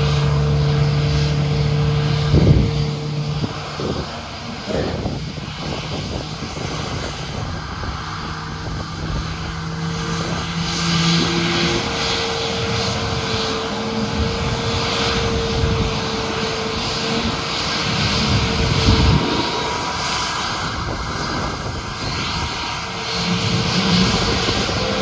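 Airplane engines running, a steady loud drone with humming tones; the deeper hum stops about halfway through.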